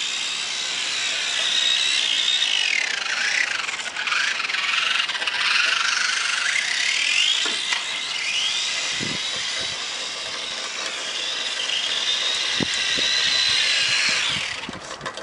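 Electric motor of a radio-controlled truck whining, its pitch rising and falling again and again as the throttle is worked, with a few light knocks along the way.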